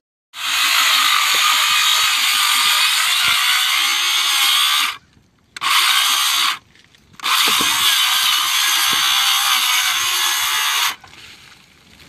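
DeWalt cordless circular saw cutting through asphalt shingles and roof decking, in three runs: a long cut, a brief one about five and a half seconds in, then another long cut that stops sharply about a second before the end.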